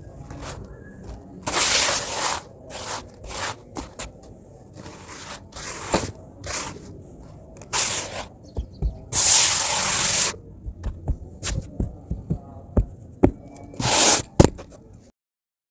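Hands raking and smoothing crumbly sand in a plastic basin: a run of short gritty swishes and rustles with a few sharp ticks, and one longer, louder sweep about nine seconds in. The sound cuts off just before the end.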